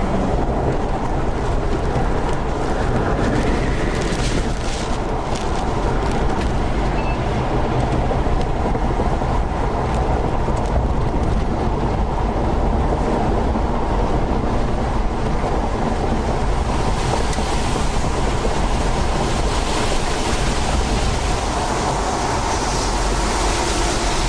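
Violent tornado winds buffeting the microphone: a loud, steady roar of wind noise that cuts off suddenly at the end.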